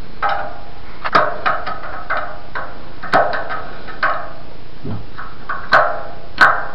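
Sharp metallic clicks and taps, about seven of them with a brief ringing after each, as the aluminium radiator's Mayevsky air-bleed valve is worked open to let air out of the heating system; a steady hiss underlies them.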